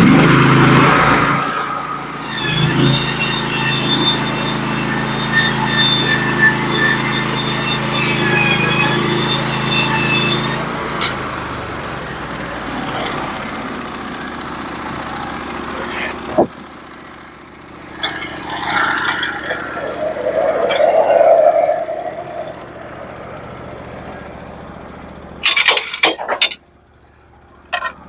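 Norwood HD36v2 portable bandsaw mill's engine running hard with a high band whine as the blade cuts through the log, dropping suddenly to a much quieter run about ten seconds in. Several sharp knocks and clanks follow, with a cluster of them near the end.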